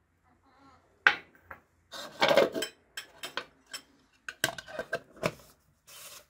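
A spoon and a ceramic bowl clinking and knocking against a glass jar, in a series of sharp clinks, then a plastic lid being fitted and twisted onto the jar near the end.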